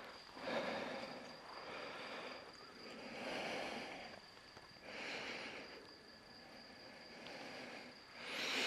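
Steady high insect trill in the night air, under soft irregular rustling bursts that come every second or two.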